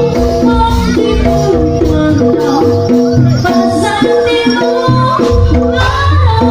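Jaranan music, the East Javanese horse-dance genre, played loudly over a sound system: a steady beat with bass, melodic instruments and jingling percussion.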